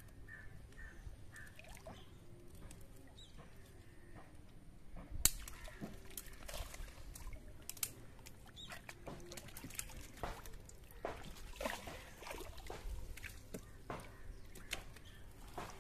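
Light, irregular splashes and drips of water as a fishing net holding caught fish is lifted and worked by hand in shallow water. It starts with a sharp knock about five seconds in.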